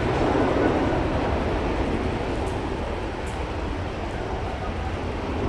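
Airbus A330-202's General Electric CF6-80E1 turbofan engines rumbling as the airliner rolls out along the runway after landing, the noise fading gradually.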